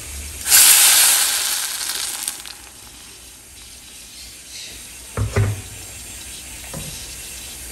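Blended tomato salsa poured into hot oil in a clay cazuela: a loud sizzle breaks out about half a second in and dies down over a couple of seconds to a low, steady frying hiss. A couple of dull knocks come later.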